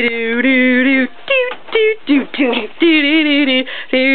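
A person singing a tune without words, in long held, wavering notes broken by short sung syllables, close to the microphone.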